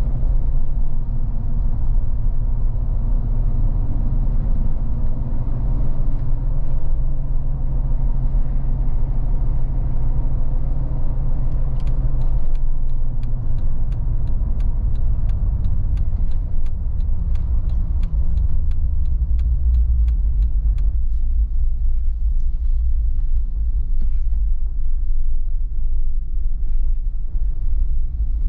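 In-cabin rumble of a 2018 Jeep Wrangler Sahara driving slowly: a steady low drone of engine and tyres. For about ten seconds in the middle it is joined by a run of evenly spaced light ticks.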